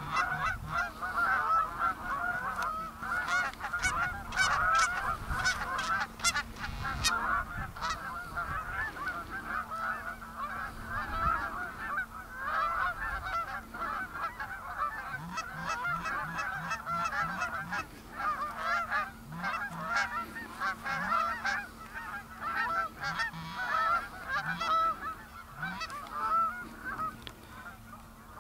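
A flock of Canada geese honking, many calls overlapping without a break, growing fainter near the end.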